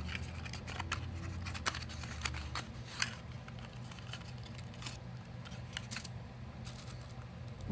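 Packaging and small plastic parts being handled while unboxing: a scatter of irregular clicks, taps and scratches, the sharpest about three seconds in, over a faint low hum.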